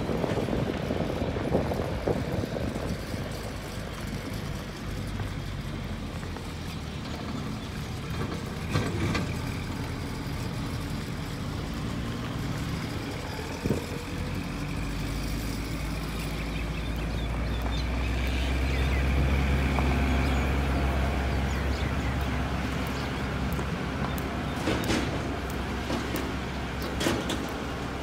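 Motor vehicle engine running steadily, its low drone swelling about halfway through and easing off a few seconds later, with a few light knocks.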